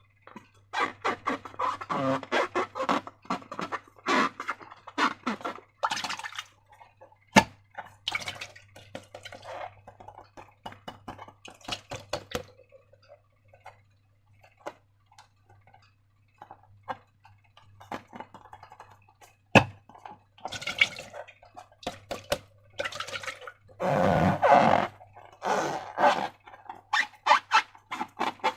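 Slime being squeezed, stretched and pressed by hand, giving irregular wet, sticky squelches and crackles. There are two sharp taps, one about a quarter of the way in and one about two-thirds through.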